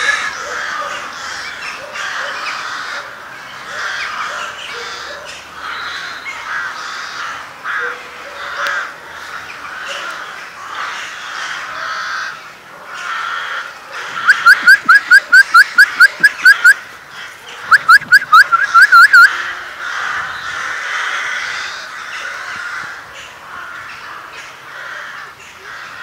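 Stray puppies whining and squealing throughout. About halfway through come two runs of loud, high, rapidly repeated rising squeals, about six a second.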